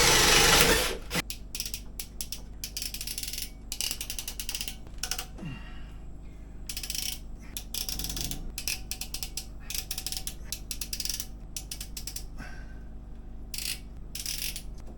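Hand-tool work on plumbing fittings: a loud rushing noise in the first second, then a string of short, irregular clicking and scraping strokes.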